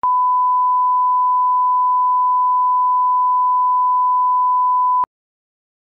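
Broadcast reference test tone accompanying colour bars: one steady, pure pitch held for about five seconds, then cut off suddenly.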